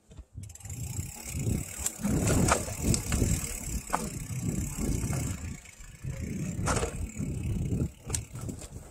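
Mountain bike rolling fast down a dirt singletrack: wind buffets the microphone in uneven low rumbles, and the bike knocks and rattles sharply over bumps several times. A steady high hiss runs through the first half.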